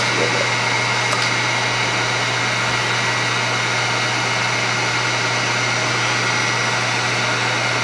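Electric heat gun blowing steadily: a constant rush of hot air over a steady motor hum.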